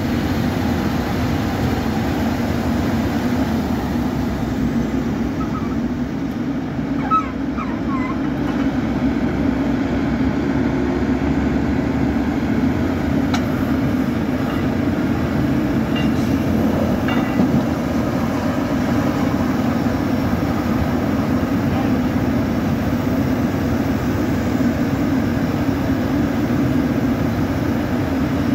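Crawler-mounted borewell drilling rig running steadily while drilling, a constant low mechanical drone, with a few faint squeaks and clicks.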